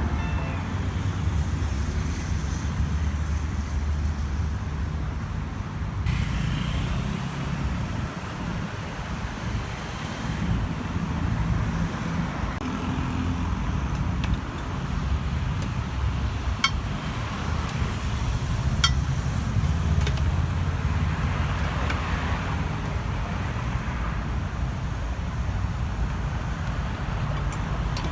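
Street ambience: a steady rumble of road traffic, with a few short sharp clicks partway through.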